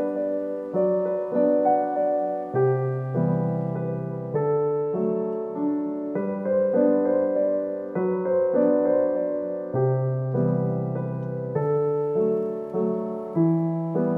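Background piano music: a slow, even run of struck notes over a low bass line.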